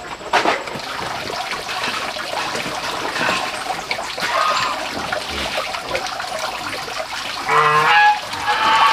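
Steady rush of running water, with poultry calling now and then and a louder call near the end.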